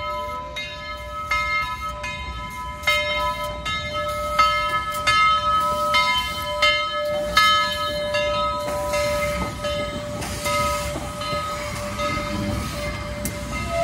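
Steam locomotive Southern 4501's bell ringing steadily, about one stroke every three-quarters of a second, as the 2-8-2 Mikado rolls slowly past, over the hiss and rumble of the engine. The ringing fades after about nine seconds, leaving the locomotive's rumble and hiss.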